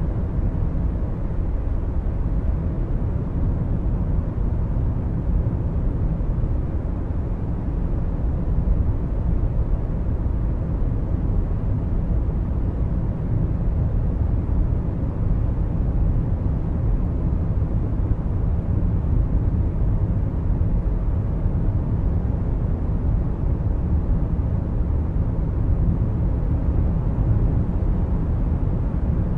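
Steady low rumble of a car driving at road speed, road and engine noise heard from inside the car.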